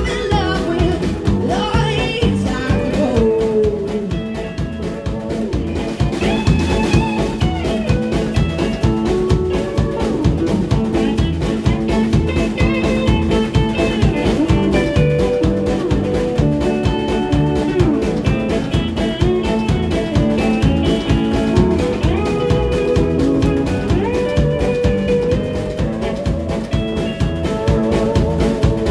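Live band playing an up-tempo blues-rock song: hollow-body electric guitar and drum kit with a steady beat, and a woman singing lead.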